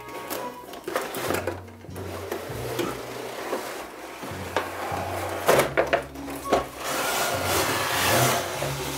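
Background music with stepping bass notes, over rubbing and scraping handling noises and a few sharp knocks.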